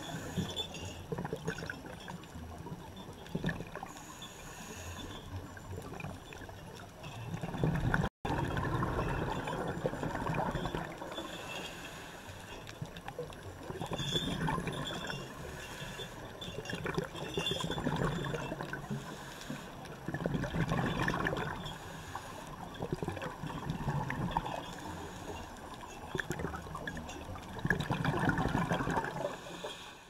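Underwater bubbling and gurgling from scuba divers' regulators, swelling every three to four seconds in the rhythm of a diver's breathing as exhaled bubbles stream out.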